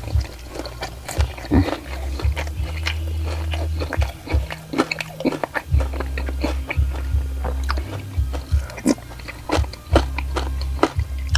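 A person chewing and biting food close to the microphone, with many crisp crunches and wet mouth clicks, over low background music.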